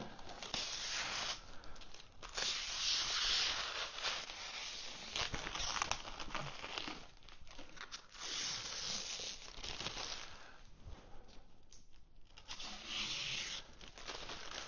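Clear plastic packaging bag being pulled off a boxed device and crumpled in the hands: crinkling and rustling that comes in several bursts, with short lulls between them.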